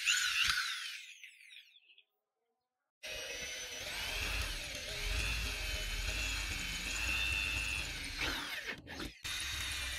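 Corded electric drill running under load as its bit bores through a circular saw's metal base plate, with a low hum and a whine that wavers in pitch. The sound fades and breaks off for about a second, then drilling resumes about three seconds in and dips briefly near the end.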